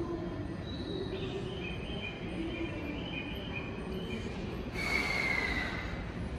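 Platform noise beside a standing JR East E131-series electric train: a steady low hum with faint high tones. About five seconds in, a brief louder hiss with a falling squeal.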